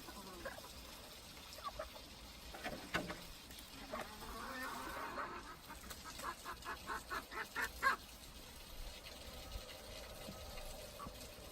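Chickens clucking, with a quick run of short, rapid clucks a little past the middle.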